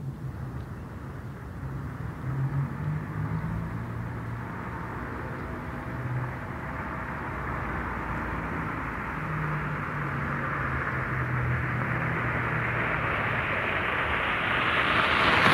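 1960 Ford Anglia approaching: a low engine hum under tyre and road noise that grows steadily louder, swelling most in the last couple of seconds as the car nears.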